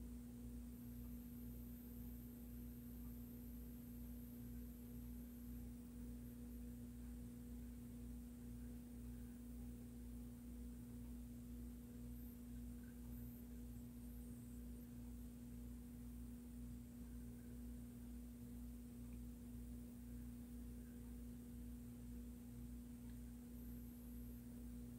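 A faint, steady hum: one low tone with a fainter one above it, over a low rumble, unchanging throughout.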